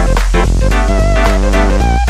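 Background music: a wavering melody over a steady bass and a regular beat.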